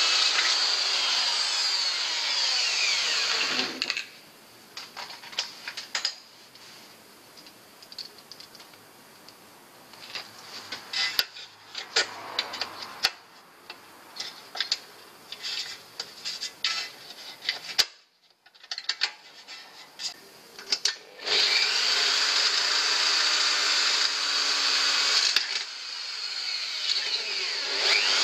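Corded electric drill running as it bores into the metal bike rack and mudguard for about four seconds, its pitch bending with the motor speed. Then a long stretch of small scattered knocks and clicks of metal parts being handled, before the drill runs again for the last six or so seconds.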